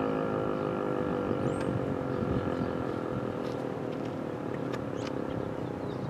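ASC T-121 electromechanical tornado siren winding down after its alert tone, its pitch slowly falling as the sound fades. A few faint high chirps.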